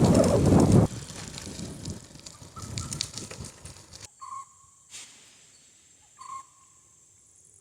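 A bird calling: two short clear notes about two seconds apart, with fainter calls before them. The first second holds loud wind and riding noise that then drops away.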